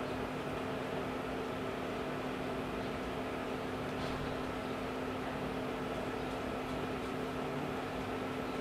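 Steady mechanical hum with a constant low tone and a hiss, like a fan or air-conditioning unit running, with one faint tick about four seconds in.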